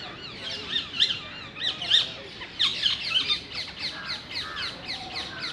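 Many birds chirping and squawking at once, a dense chorus of quick, overlapping calls.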